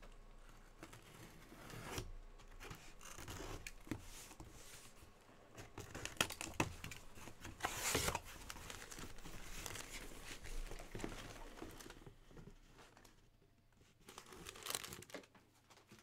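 Sealed cardboard shipping case being opened by hand: tape and cardboard tearing, flaps rustling and scraping, with a few sharp knocks; the loudest tearing comes about halfway through.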